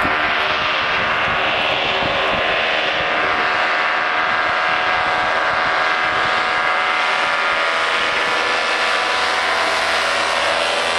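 De Havilland Canada DHC-2 Beaver floatplane's radial engine and propeller running steadily at high power during a takeoff from a snow-covered field. The engine pitch shifts slightly near the end.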